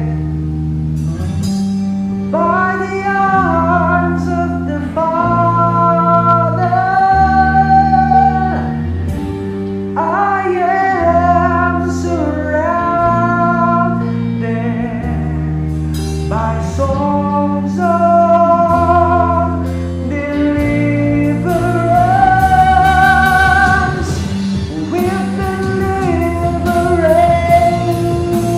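Live worship band: a man and a woman singing a slow melody in long held phrases over electric guitar, bass guitar and drums, with deep bass notes changing every couple of seconds.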